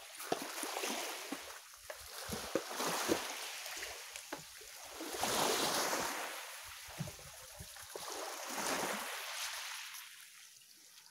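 Small waves washing in over a stony shore, swelling and ebbing about three times, with light scattered clicks of stones.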